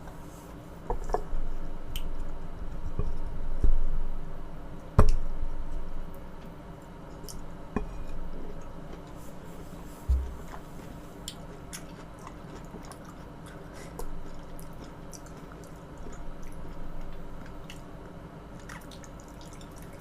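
Close-miked eating sounds: wet, squishy chewing of soft food, with scattered small clicks and a few sharper knocks, the loudest about five seconds in.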